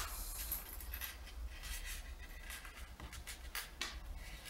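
Plastic packaging crinkling and rustling, with small scrapes and clicks from a black plastic action-camera mount being handled, in short irregular rustles that are strongest at the very start.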